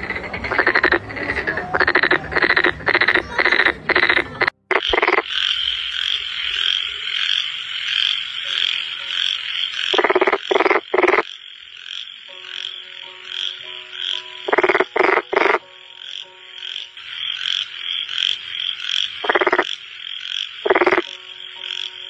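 Frogs croaking. First comes a quick run of repeated croaks, about two or three a second. After a short break, a steady high-pitched chorus carries on, with loud croaks in groups of two or three and then single ones.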